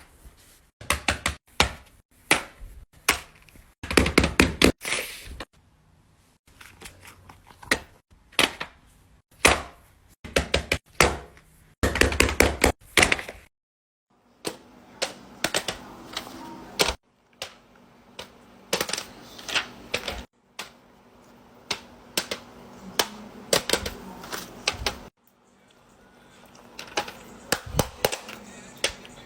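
Plastic fidget toys being clicked, pressed and tapped by hand: rapid bunches of sharp clicks and knocks, some in quick runs and some single. A low steady hum sits under the clicks through the second half.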